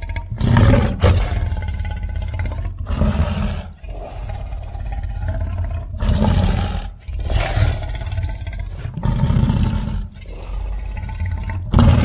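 Creature sound effects for the tapiraphant, a made-up tapir–elephant beast: a string of roars, six or seven loud outbursts over a steady low rumble.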